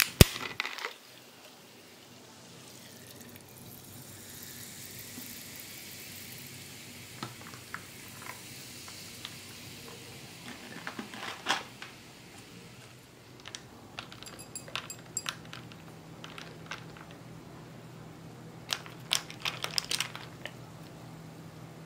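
Soda water poured from a plastic bottle into glasses of iced watermelon juice, fizzing with a hiss that builds a few seconds in and fades about halfway through. Scattered light clicks and clinks of ice and straws against the glasses follow.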